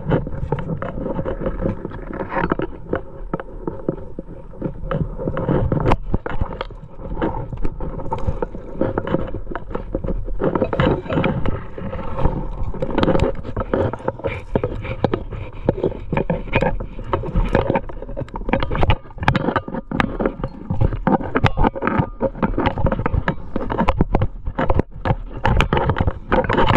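A trad climber's racked gear clinking and scraping against rock and clothing as the climber moves. It comes as a near-constant stream of small knocks and rubbing.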